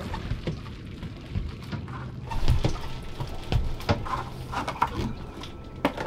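Irregular knocks and thumps on an aluminium boat as a big lingcod in a landing net is hauled aboard, over a steady low hum.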